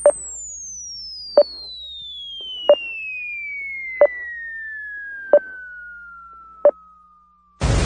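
Cartoon-style falling-bomb sound effect: a long whistle gliding steadily down in pitch, with a short click about every 1.3 seconds, then a loud crash like an explosion begins just before the end.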